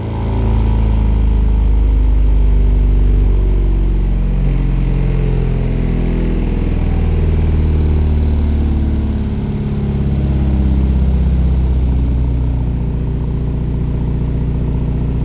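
Two Soundstream X3.12 subwoofers powered by a Taramps MD 12000.1 amplifier at 0.5 ohm playing very loud bass test tones, a frequency sweep to find the system's loudest frequency. The bass runs steadily with slowly shifting pitch and cuts off abruptly right at the end.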